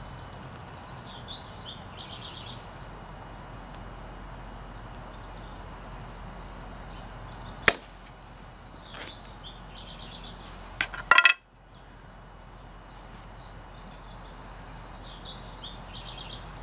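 A single sharp crack about halfway through as a prismatic obsidian blade pops off the core under the pressure of an antler-tipped chest crutch, followed a few seconds later by a quick cluster of louder clicks. Birds chirp briefly in the background three times.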